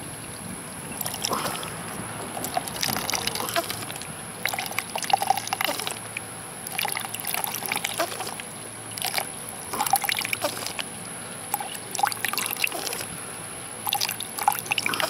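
Filtered water squirting from a Berkey Sport bottle's straw into a plastic cup already holding water, in irregular spurts as the bottle is squeezed again and again.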